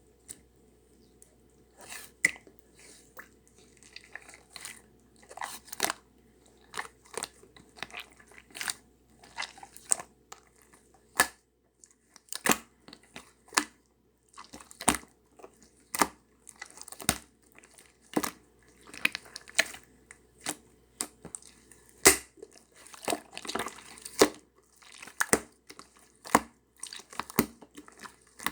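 Slime being squeezed and pressed by hand, giving a run of sharp sticky pops and crackles, about one or two a second, starting about two seconds in.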